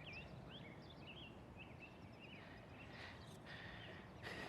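Faint outdoor background of small birds chirping over low ambient noise, with a couple of faint clicks near the end.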